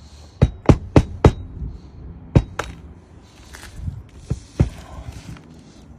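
Hammer driving roofing nails by hand through a three-tab shingle: a quick run of four sharp blows in the first second and a half, a couple more about two and a half seconds in, and two more past the four-second mark.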